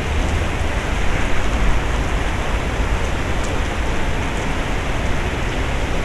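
Heavy typhoon rain pouring steadily, with a low rumble of wind buffeting the microphone.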